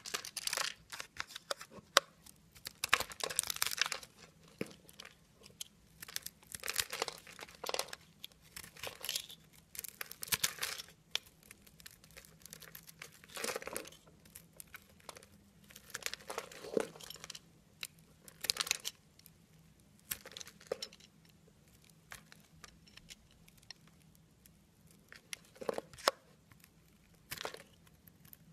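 A snap-off utility knife cutting into a grid-scored bar of white soap: irregular crisp, crunchy strokes as small cubes and flakes break away, with short pauses between cuts and a longer lull near the end.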